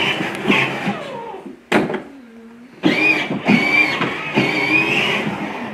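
Power Wheels Corvette Stingray ride-on toy car's electric drive motors and gearboxes whining as it drives. After a click, it stops for a moment about two seconds in, then starts again with a wavering whine.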